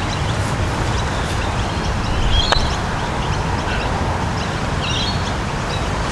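A single sharp click of a putter striking a golf ball about two and a half seconds in, over steady low wind noise on a clip-on microphone, with birds chirping now and then.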